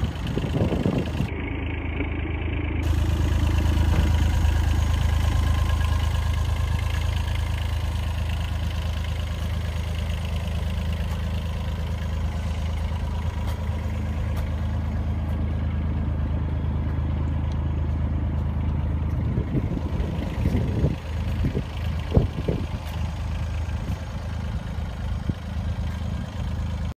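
Takeuchi TB016 mini excavator's three-cylinder Yanmar diesel idling steadily. A few brief low thumps come about twenty seconds in.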